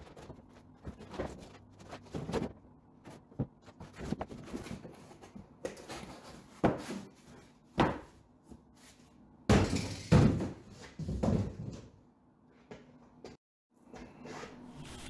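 A cardboard box being unpacked: rustling cardboard and a run of irregular knocks and thumps as metal parts are lifted out and set down on a bench. The handling is busiest and loudest about two-thirds of the way through.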